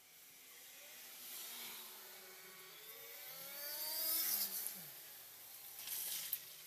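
A motor vehicle driving past, its engine note growing louder and rising, then falling away just after it peaks about four seconds in. A few light clicks near the end.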